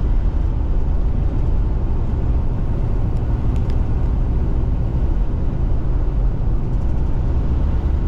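Car driving on a dirt road, heard from inside the cabin: a steady low rumble of tyres and engine.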